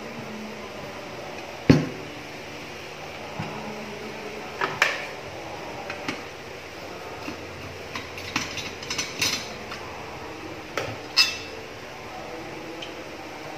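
Metal parts and tools of an electric flat iron clinking and knocking as it is taken apart, with one sharp knock near the start and scattered clicks after it.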